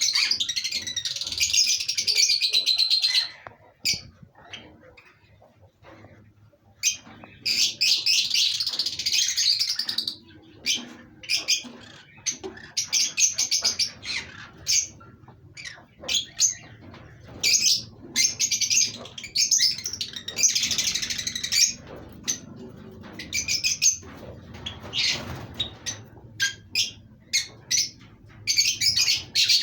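Pet birds chirping and chattering in repeated bursts of high, rapid twittering, each lasting a second or a few, with short single chirps between them.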